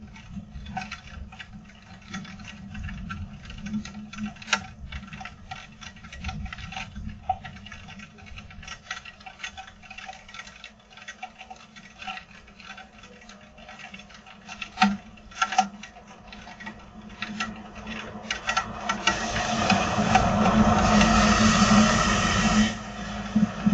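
Rain falling, with irregular drops and drips pattering and tapping on hard surfaces over a low rumble. From about nineteen seconds in, a louder steady rushing noise swells and cuts off suddenly near the end.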